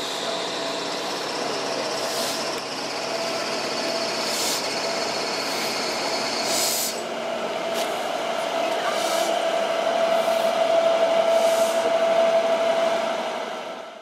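Steam locomotive rolling slowly through a depot yard, with a steady ringing tone that grows louder near the end and short hisses every two seconds or so.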